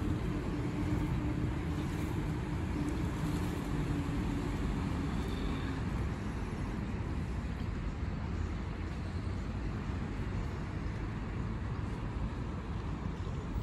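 Steady city traffic noise with wind rumbling on the microphone. A faint steady hum fades out about five or six seconds in.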